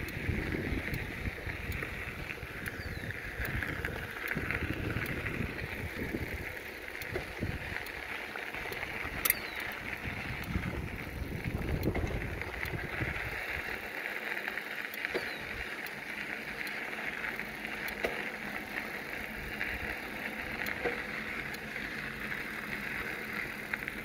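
Bicycle being ridden along a trail: steady rolling tyre noise, with wind rumbling on the microphone for the first half. A single sharp click comes about nine seconds in.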